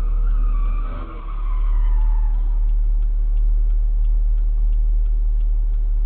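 Dashcam audio of road traffic: a steady low rumble under a high squeal from a vehicle, which slides down in pitch and fades out about two seconds in. Faint even ticking follows at about three ticks a second.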